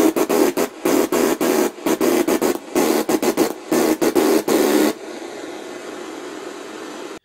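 Homemade spark gap of two screw heads, fed by electronic fly-swatter circuitry, crackling with loud rapid sparks in a run of short bursts about a second apart, as it is switched on and off, over a steady hiss.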